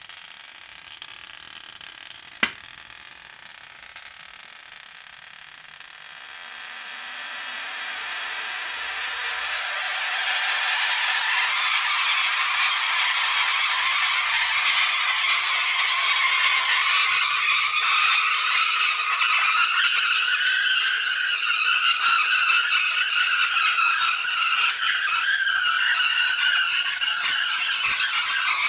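ZVS-powered spark-gap Tesla coil throwing arcs from its top load: a loud hissing, crackling buzz of the sparks and spark gap firing at a high break rate. After a sharp click a couple of seconds in, the noise builds up over several seconds and then holds loud and steady.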